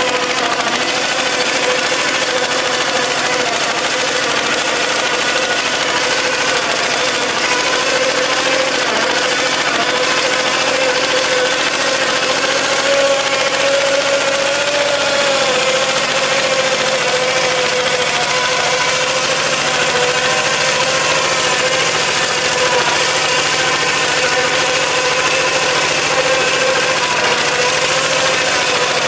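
Singtothong STT155 small tractor's single-cylinder diesel engine running steadily under load while it drives a PTO rotary tiller churning through soil.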